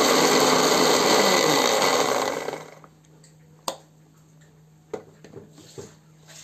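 Electric mixer grinder running with its steel jar, grinding a wet masala paste of cashews, ginger, garlic, onion and green chillies; it is switched off about two seconds in and spins down with a falling hum. Then a sharp click and a few light knocks as the jar's lid is unclipped and lifted off.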